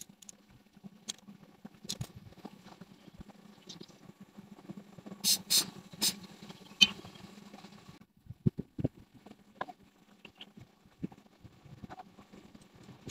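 Mazda 323's carbureted engine idling as a steady low hum, with scattered sharp clicks and knocks over it, the loudest a few seconds in. The hum drops away about eight seconds in, leaving only the clicks.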